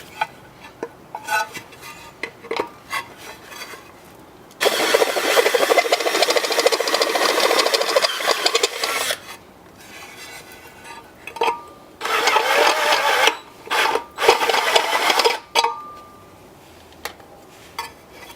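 Power drill boring out a hole in metal to enlarge it: one long run of drilling of about four and a half seconds, then three shorter bursts, preceded by a few light clicks of handling.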